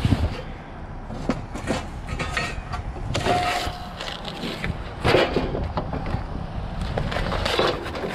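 Construction debris being shifted by hand in a dumpster: irregular scrapes, knocks and clatters of board, sheet-metal studs and wire, with a brief squeak about three seconds in.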